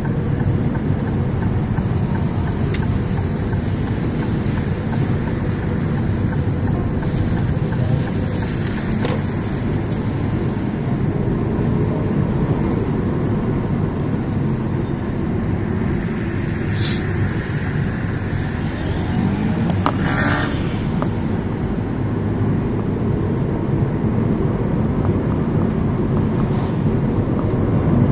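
Steady road and engine noise of a car driving, heard from inside the cabin, on wet roads. About 17 seconds in there is one sharp click, and about 20 seconds in a short higher-pitched sound.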